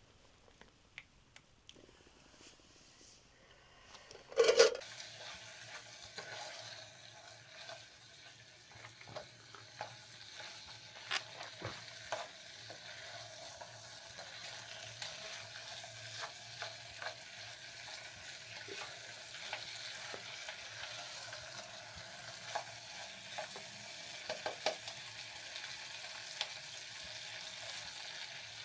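Food sizzling in a pan, starting with a brief loud burst about four seconds in. A steady hiss follows, with scattered clicks and scrapes of stirring.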